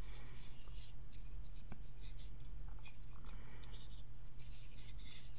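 Faint small clicks and rubbing of a plastic Gundam model (HG 1/144 Qubeley) being held and turned in the fingers, over a steady low hum.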